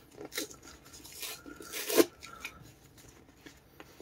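Rustling and crinkling of thin disposable vinyl gloves being pulled from a cardboard dispenser box, with handling of the box's torn-open flap. The loudest part is a sharp crackle about two seconds in, then quieter rustles.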